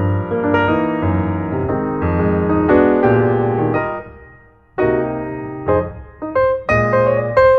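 Background piano music: a melody of struck notes, with a brief pause about four seconds in before the notes resume.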